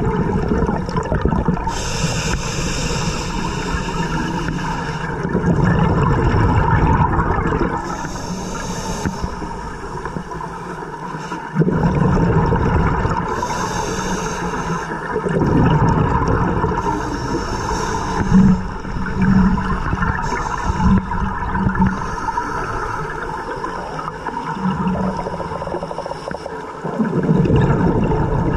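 Scuba breathing heard underwater through a camera housing: hissing regulator inhalations every few seconds, alternating with low bubbling and gurgling of exhaled air.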